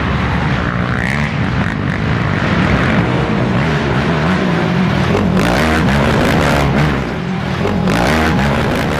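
Racing ATV engines running hard, their pitch rising and falling over and over as the quads are throttled on and off along the off-road track.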